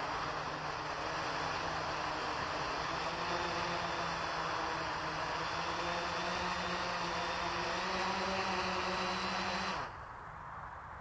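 Small quadcopter's electric motors and propellers running with a steady whine, the pitch edging up slightly, then cutting off abruptly near the end as the motors stop.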